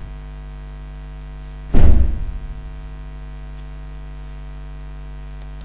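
Steady electrical mains hum, with one loud, low thump about two seconds in.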